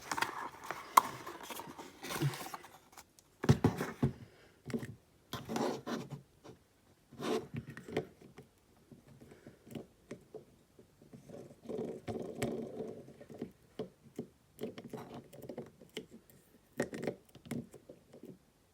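Packaging and rolls of tape being handled and pulled apart: irregular scrapes, rustles and small knocks.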